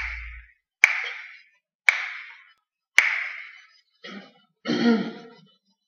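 Hand claps keeping a slow, even beat, four sharp claps about a second apart, counting in an a cappella song. A short burst of a woman's voice follows near the end.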